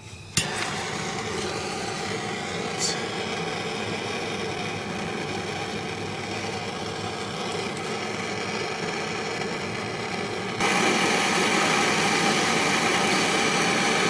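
Torch flame hissing steadily while heating the engine block around a broken exhaust manifold bolt. It starts with a click and gets louder at about ten seconds in.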